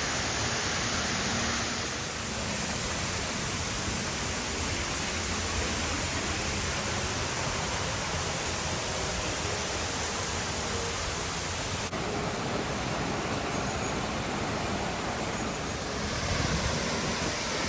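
Waterfall rushing: a steady, dense hiss of falling water. Its tone shifts abruptly a few times.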